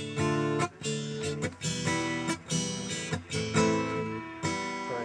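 Acoustic guitar strummed in a steady rhythm of chords: the instrumental introduction before the singing.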